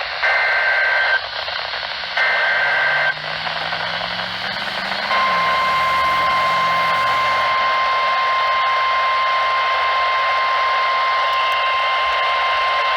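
Emergency Alert System alert received on a NOAA Weather Radio over steady static: two short bursts of buzzing digital SAME header data, then, about five seconds in, the weather radio's steady single-pitch warning alarm tone begins and holds.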